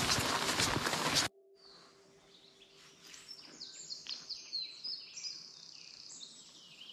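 Loud walking footsteps for about the first second, cut off abruptly. Then softer woodland birdsong: several birds singing quick, sliding whistled phrases.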